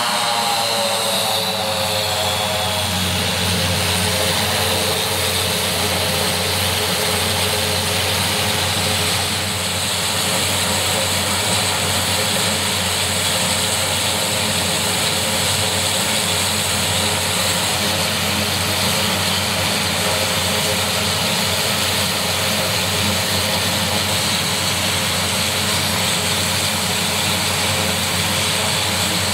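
Short SC-7 Skyvan's twin Garrett TPE331 turboprop engines and propellers running at ground idle. The pitch settles downward over the first couple of seconds, then holds a steady whine and drone.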